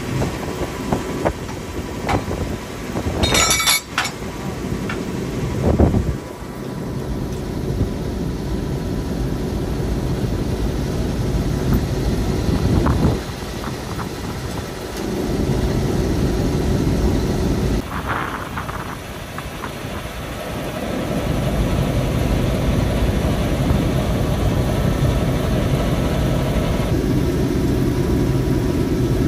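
Diesel shunting locomotive's engine running, with a few sharp metallic clinks and a knock in the first several seconds as the coupling and brake hoses to the carriage are connected. The engine gets louder about twenty seconds in.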